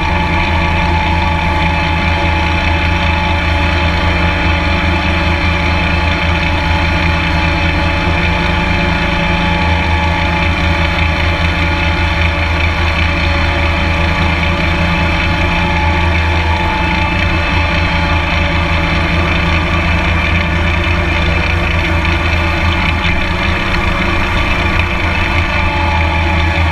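Toro GrandStand stand-on mower's engine running steadily while mowing.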